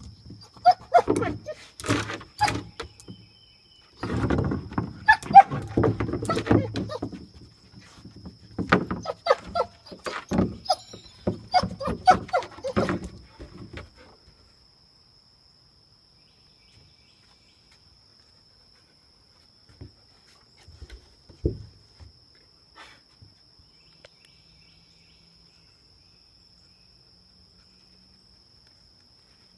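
A puppy's claws scrabbling and clattering on wooden deck boards while it noses and mouths a turtle, the hard shell knocking against the boards. The clatter stops about halfway through, followed by quiet with a couple of soft thumps.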